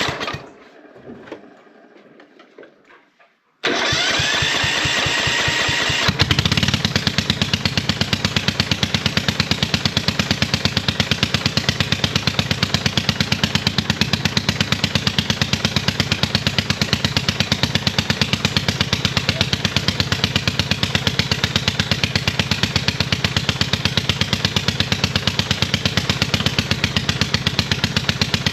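Ride-on lawn mower engine cranked on its starter, which spins up with a rising whine, then catching after about two seconds and running loudly with a rapid, even exhaust pulse. It is running too rich, with no back pressure in its exhaust.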